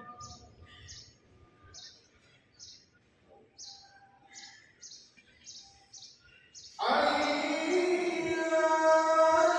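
A pause in the azan filled by a small bird chirping, about ten short high chirps a bit over one a second. About seven seconds in, the muezzin's chanted call to prayer resumes loudly with a long held phrase.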